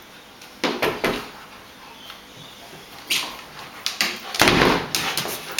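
Golden retriever and Jack Russell terrier play-fighting over a toy: scuffling, bumps and paws scrabbling on a wooden floor and dog bed, in short irregular bursts. The loudest, longest bump comes about four and a half seconds in.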